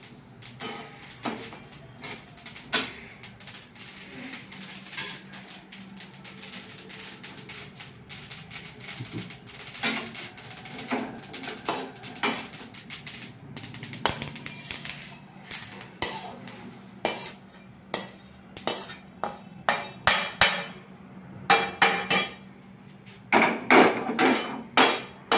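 A steel slotted spoon clinking and scraping against a steel kadhai while stirring dry-roasted sesame seeds, in irregular metallic clicks that come thick and fast over the last few seconds.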